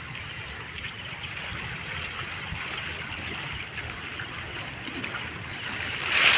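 Steady hiss of water, with a few faint ticks, growing louder near the end.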